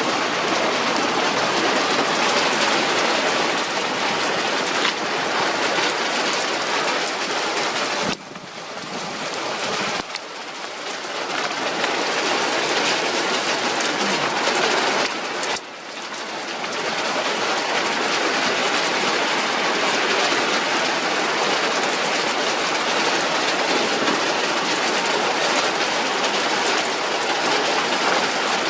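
Heavy rain falling, a steady dense hiss of downpour. It drops away suddenly about eight seconds in and again about fifteen seconds in, building back up each time.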